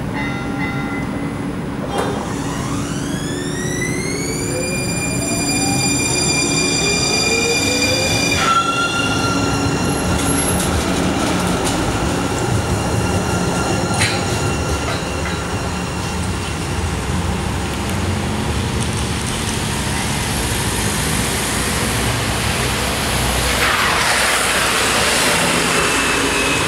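Siemens Type 5 light rail train's electric traction drive whining as it pulls away: several tones glide upward together, drop abruptly about eight seconds in, then hold steady as the cars roll past, with a sharp click around fourteen seconds. A broad rushing noise rises near the end.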